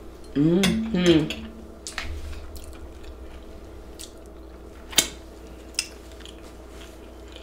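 A woman eating seafood Alfredo pasta close to the microphone: a short hummed "mm-mm" of enjoyment about half a second in, then quiet chewing and finger-licking with a few sharp mouth clicks, the loudest about five seconds in.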